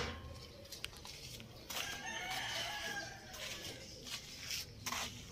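A bird calling: one drawn-out call of about two seconds, starting about two seconds in, followed by a few sharp clicks near the end.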